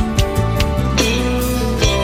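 Instrumental break in a Christian worship song, no singing: guitar over sustained chords and a bass line, with a regular beat of sharp hits.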